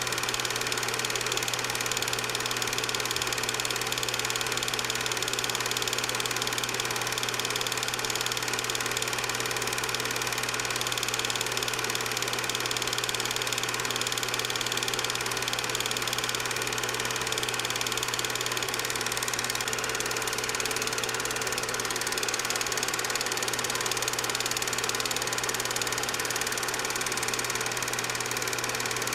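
An 8mm film projector running with a steady mechanical whir and no change throughout: the noise of the projector under a silent home movie being transferred.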